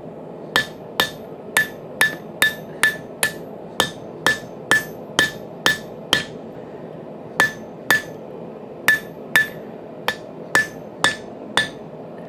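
Hand hammer striking hot spring steel on an anvil while forging a knife's ricasso and tang: about twenty blows at roughly two a second, each with a short metallic ring, paused briefly twice.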